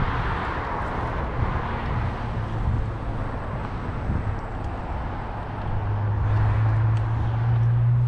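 Wind rushing over the microphone and rolling road noise from a scooter ride, under a low steady hum that grows louder over the last few seconds.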